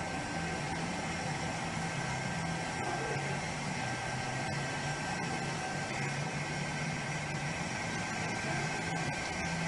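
An engine running steadily at a low hum, under a constant hiss of noise.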